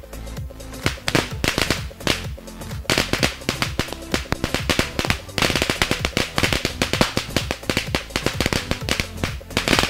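A rapid, irregular string of crackling firecracker-like pops over a music track with a steady bass.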